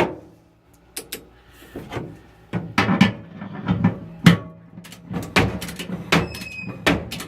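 Irregular metal clicks and knocks of hand tools working on a Fisher & Paykel dryer's drum bearing shaft and bolt, with a brief high ring about six seconds in.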